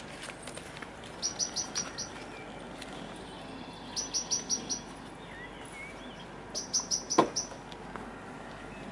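A small songbird singing short phrases of five or six quick, identical high notes, repeated three times with pauses between. A sharp click cuts in during the third phrase, over a steady outdoor hiss.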